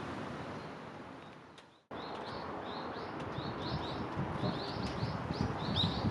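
Steady outdoor background noise fades out to silence, then cuts back in with low wind rumble and a rapid series of short, high chirps from small birds, growing busier toward the end.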